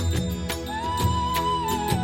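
Background music: a melody note held and then bending downward over sustained chords, with regular light percussion strikes.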